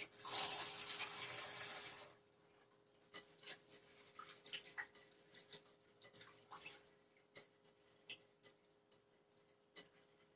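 Kitchen tap running into a bowl of red lentils for about two seconds, then a scatter of small splashes and drips as a hand swirls the lentils in the water to rinse them.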